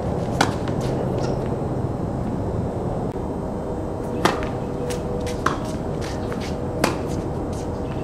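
Tennis balls struck with racquets: a sharp pop about half a second in, then a serve about four seconds in and two more hits over the next three seconds, with fainter ball taps in between, over a steady background hiss.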